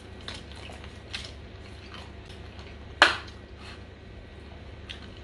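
Light clicks and taps of a plastic drink cup with a lid and straw being handled, with one sharper click about three seconds in, over a low steady hum.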